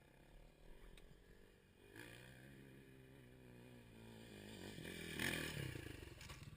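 Faint dirt bike engine running, getting louder to a peak about five seconds in and then fading.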